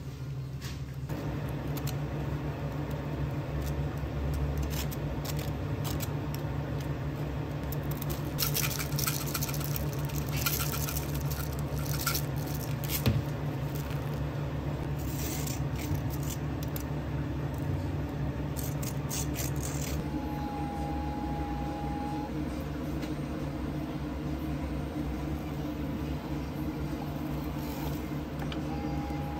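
Cafe work sounds: a steady appliance hum with scattered clicks, taps and scrapes of handling, busiest in the first two-thirds. About two-thirds through, a single steady tone sounds for about two seconds, and briefly again near the end.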